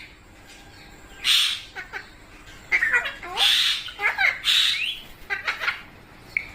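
Pet Indian ringneck parrots calling: a harsh squawk about a second in, then a run of loud squawks mixed with short, quick chirps for a few seconds.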